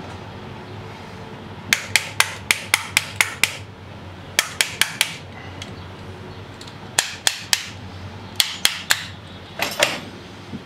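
A screwdriver tapping on a South Bend Heavy 10 lathe's spindle bearing cap in quick runs of four to eight sharp taps with pauses between, working the cap loose from its locating pins. A brief rattle near the end.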